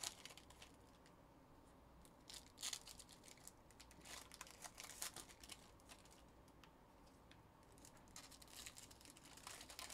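Faint, scattered crinkling and rustling of trading-card pack wrappers being torn open and cards handled.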